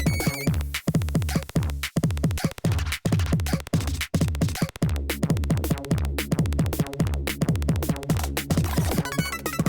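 Electronic music with a drum machine: a fast, dense run of falling bass glides, broken by brief dropouts about once a second.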